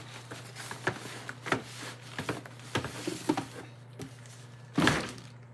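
Heavy plastic bag rustling and crinkling, with light knocks against the cardboard box, as a packed item is pulled out of its box, with a louder rustle near the end. A steady low hum runs underneath.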